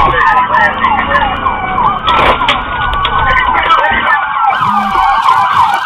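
Police sirens, several at once, wailing and yelping: fast up-and-down sweeps overlap slower rising and falling ones.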